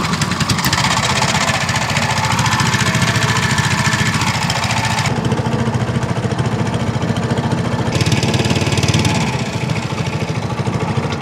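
Small boat's petrol engine running under way, a fast, even chugging. A hiss of wind and spray over it drops away for a few seconds in the middle, then comes back.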